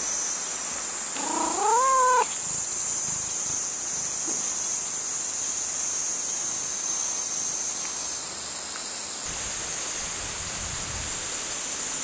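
Orange tabby cat meowing once, about a second in: a single call of about a second that rises in pitch. A steady high chorus of cicadas runs underneath.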